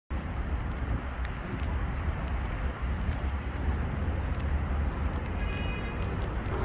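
Outdoor city-square ambience: a steady wash of distant traffic and people, under a heavy, uneven low rumble. A brief pitched sound rises out of it about five and a half seconds in.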